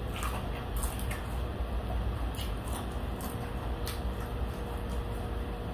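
Wet mouth sounds of someone eating a sauce-covered chicken wing: a few scattered smacks and clicks over a low steady background hum.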